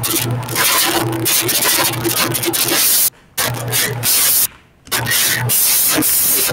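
Loud, harsh rasping noise with an on-and-off low hum, coming through a voice-chat call from one participant's microphone; it cuts out suddenly twice, about three and four and a half seconds in.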